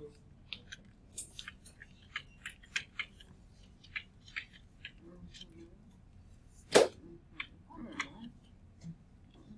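Irregular light clicks and taps of a stylus on a touchscreen during handwriting, with one sharp, much louder knock about seven seconds in.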